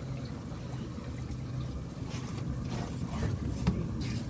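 Swamp tour boat's engine idling with a low steady hum, and a short sharp knock about three and a half seconds in.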